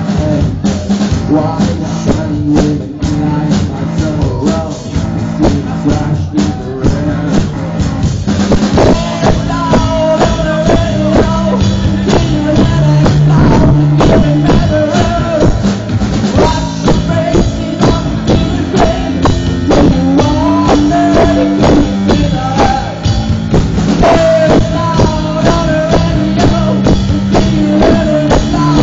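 Live rock band playing: a drum kit keeps a steady beat under electric guitar, and the band comes in fuller with singing about eight seconds in.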